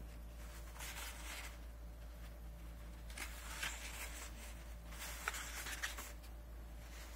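Pages of a hardcover book turned by hand: three soft paper swishes with a few light taps, over a low steady hum.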